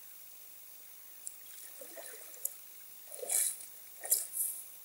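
Rubber waders sloshing through shallow lake water, a few splashy wading steps in the second half.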